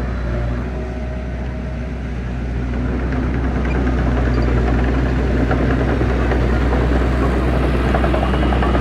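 Diesel engine of heavy earthmoving equipment running steadily with a deep, even drone, growing louder about a third of the way in.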